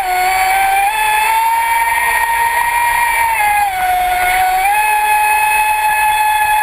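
Traxxas Spartan RC boat's brushless electric drive whining steadily at speed, heard from on board over water noise. The pitch dips for about a second near the middle as the throttle eases, then climbs back.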